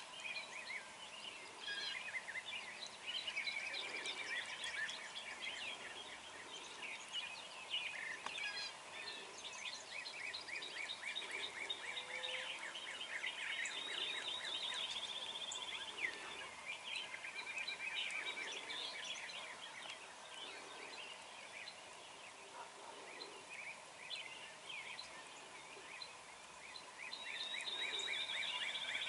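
Many songbirds singing at once, with dense overlapping chirps and trills, and a wild turkey gobbler gobbling among them.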